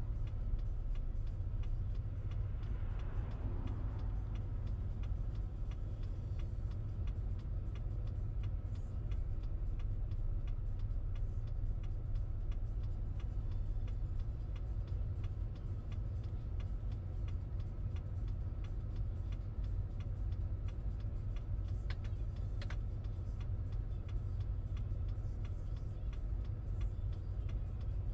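Car running in city traffic, heard as a steady low drone of engine and road noise, with a faint regular ticking laid over it.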